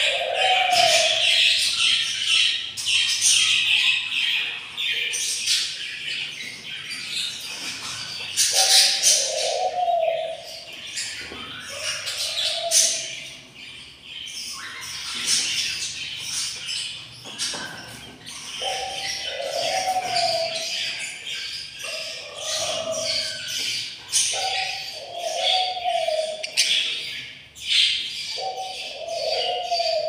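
Budgerigar chicks chirping and chattering in rapid high notes without a break. A lower, curved call about a second long comes in every few seconds over the chirping.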